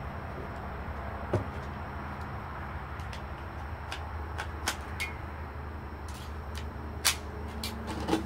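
A GSG AK-47 .22 LR rifle being readied and fired with subsonic CCI Quiet segmented hollow-point rounds (710 feet per second): about four short, sharp clacks and cracks, the loudest about seven seconds in, over a steady low hum.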